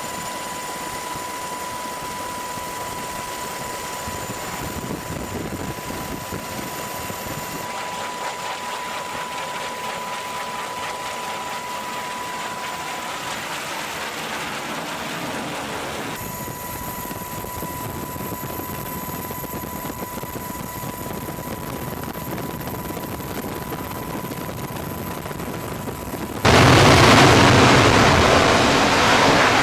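F-35C's single F135 turbofan engine running steadily with a high whine as the jet flies low on approach. About 26 seconds in, a sudden loud roar as a jet goes to full power for a catapult launch off the carrier deck.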